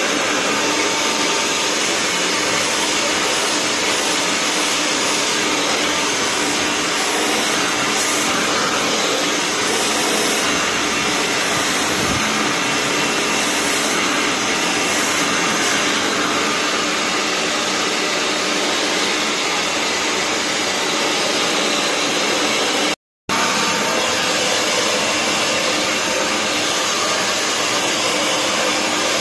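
Handheld hair dryer blowing steadily at close range onto hair. The sound cuts out for a moment about three-quarters of the way through, then carries on unchanged.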